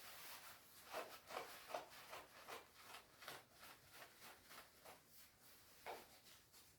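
Faint rustling and rubbing of a shiny down jacket's shell fabric being handled, in a string of short scrapes, a few of them a little louder between one and two seconds in and once more near the end.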